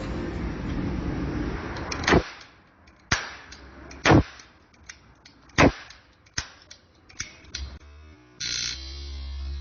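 Toy spark revolver being fired over and over: about six sharp clicks of the hammer, roughly a second apart. Background music plays before the clicks begin and comes back near the end.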